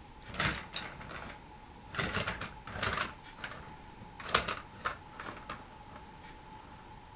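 Small electric motor of a toy tram running with a steady high whine, its wheels clicking and rattling over plastic Lego track, with a few louder clatters.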